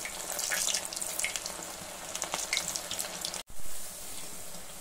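Batter-coated cauliflower florets deep-frying in hot oil: steady sizzling with scattered crackles. About three and a half seconds in, the sound cuts out for an instant and comes back briefly louder.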